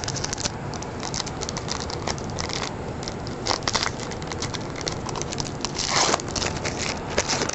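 Trading-card pack wrapper crinkling and tearing as it is opened by hand, with many small crackles and a louder rustle about six seconds in.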